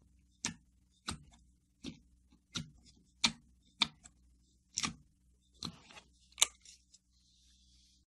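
Clear slime filled with water beads squeezed by fingers in a plastic tub, giving about nine sharp clicking pops at an uneven pace, roughly one every three-quarters of a second. These are the air pockets in the slime popping under the fingers.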